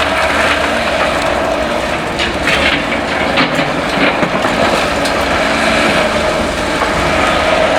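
Caterpillar excavators on a demolition site: the machinery runs steadily, with a constant tone. A run of sharp clattering knocks and cracks, as debris is broken and moved, comes about two to four seconds in.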